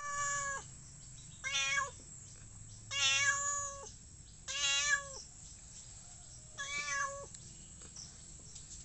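Domestic cat meowing five times, each meow under a second long, spaced about a second and a half apart.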